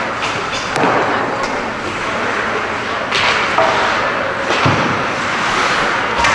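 Ice hockey play in a rink: about four sharp thuds and bangs of puck, sticks and players against the boards over a steady rink din.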